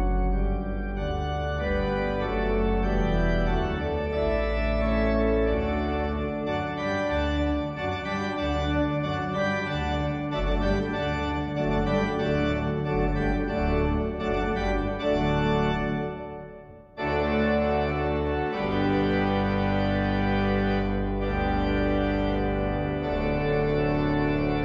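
Organ music playing slow, sustained chords. It fades out briefly about sixteen seconds in, then comes back with a new chord.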